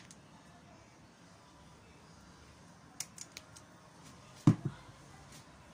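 Hand pruning tools clicking and knocking while rose cuttings are trimmed: a few light clicks about halfway through, then a sharper double knock shortly after, the loudest sound.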